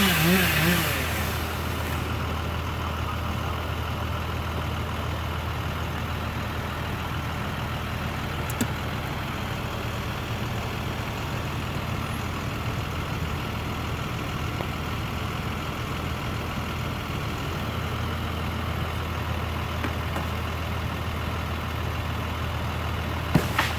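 A chainsaw's wavering whine dies away about a second in. An engine then idles steadily and low, with a few sharp clicks near the end.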